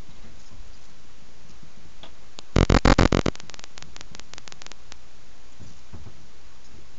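Plastic coat hangers clattering together against a wardrobe door: a quick run of loud sharp clicks about two and a half seconds in, trailing off into fainter clicks for a second or two.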